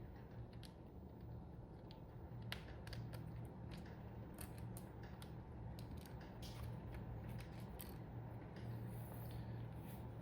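Scattered light clicks and creaks of a mechanical keyboard's parts being handled while it is taken apart, over a steady low hum.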